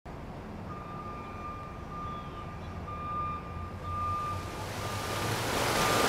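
Intro sound effects: a low rumble under a high, steady beep-like tone repeated about six times in short spells, while a rushing noise like flowing water swells up toward the end.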